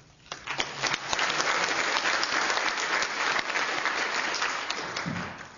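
Audience applauding, swelling up within the first second and dying away near the end.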